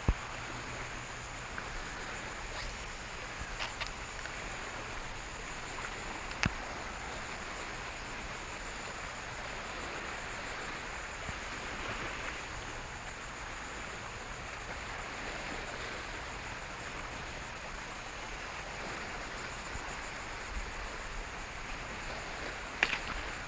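Steady wash of wind-driven water lapping against a small boat's hull, with a few sharp ticks.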